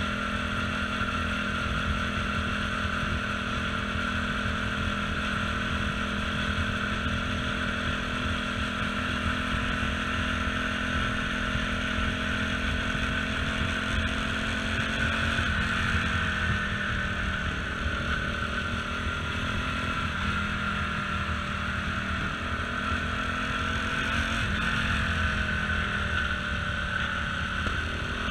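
CSC RX4 motorcycle engine running under way, heard from the handlebar camera. The note is steady, then dips and wavers in pitch from about halfway through as the throttle changes, over a steady rush of wind noise.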